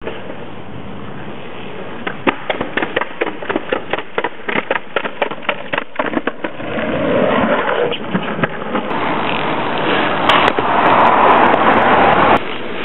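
Longboard on pavement: a quick run of clacks and knocks from the board and wheels for a few seconds, then the louder, steady rolling rush of the wheels on asphalt, which cuts off suddenly near the end.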